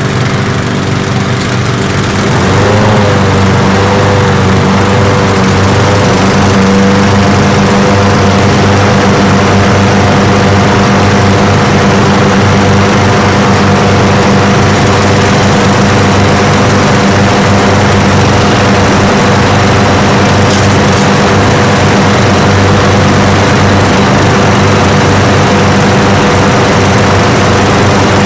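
Several small walk-behind lawn mower engines running together at a steady speed, a chorus of overlapping engine notes. About two and a half seconds in, another mower catches and joins in, its pitch wavering briefly before it settles, and the whole sound gets louder.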